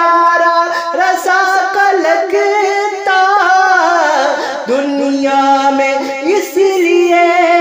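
A man's solo voice singing an Urdu naat, drawing the words out into long held notes that glide slowly up and down in pitch without a break.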